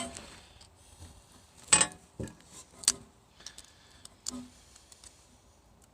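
A few light metallic clicks and clinks of hand work on metal parts, the loudest about two seconds in, with a couple more over the next few seconds.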